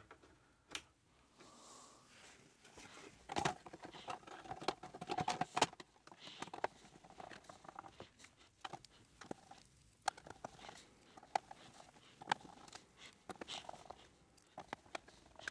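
Light clicks, taps and scrapes of a sheet-steel shield cover being handled and fitted over an LCD monitor's circuit boards, then screwed down with a hand screwdriver. The handling is busiest about three to six seconds in.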